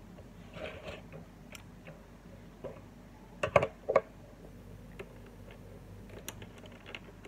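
Hard plastic clicks and knocks as a wall fan's motor housing is handled and its parts fitted together, with three sharp knocks about three and a half seconds in.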